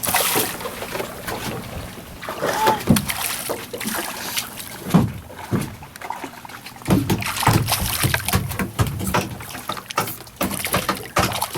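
Water splashing and sloshing around a small fishing boat, with irregular knocks and splashes.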